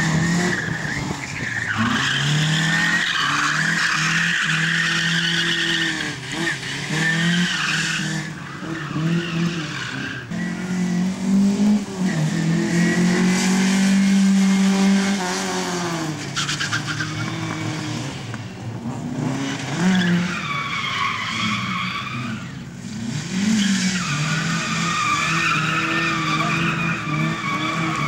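A Lada saloon's engine revving hard and dropping back again and again as it is driven through tight slalom turns, with its tyres squealing through the bends.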